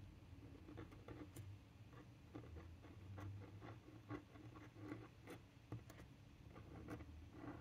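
Pointed pen nib scratching faintly on card in short, irregular strokes as calligraphy letters are written in ink.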